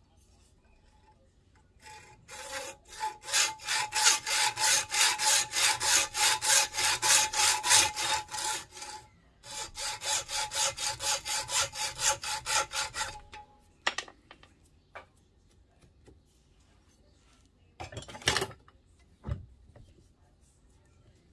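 Hacksaw cutting through a 5 mm knitting needle clamped in a bench vise: quick back-and-forth strokes, about three a second, with a faint ringing tone under them. The sawing pauses briefly near the middle and stops about two-thirds of the way in, followed by a few light clicks and a short scrape.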